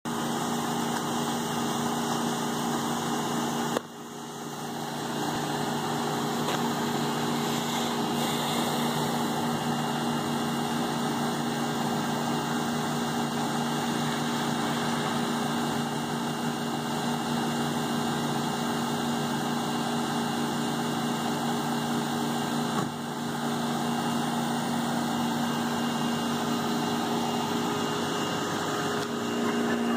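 A machine running steadily nearby: a constant mechanical hum with a few fixed low tones that does not change, with a brief drop in level about four seconds in.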